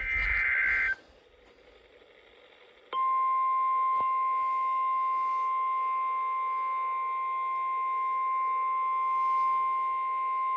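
The tail of an Emergency Alert System SAME data burst (rapid warbling digital tones) cuts off after about a second; about two seconds later the steady single-pitch NOAA Weather Radio 1050 Hz warning alarm tone starts and holds. The alarm tone signals that a warning, here a severe thunderstorm warning, follows.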